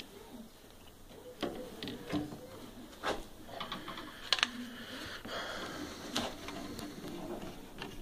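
Hands handling the parts of a microwave's control panel: the circuit board, rotary encoder knob and plastic panel housing, giving scattered clicks and light knocks with a faint rustle between them.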